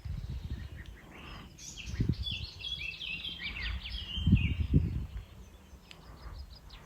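A songbird singing a quick run of high, varied notes for about three seconds, over a low rumble with a few dull thuds.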